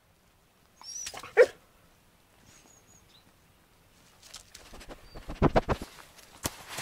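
A dog barks once, loudly, about a second and a half in. Near the end comes a run of close rustles and clicks from a camouflage smock and leather cartridge belt being handled.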